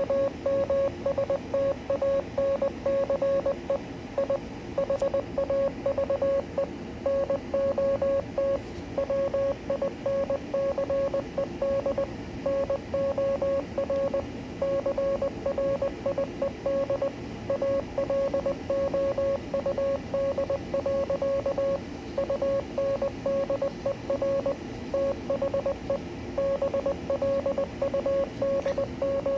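Morse code: a single beeping tone keyed on and off in short and long elements, dots and dashes, over a steady background hiss. The code spells out the text of Henley's poem Invictus.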